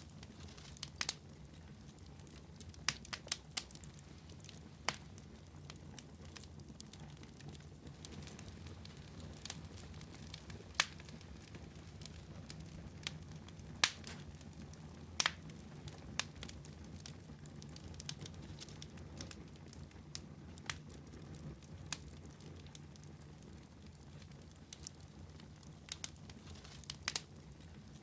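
Fire crackling in a fireplace: irregular sharp pops and snaps, a few louder ones scattered through, over a low steady rumble of the burning fire.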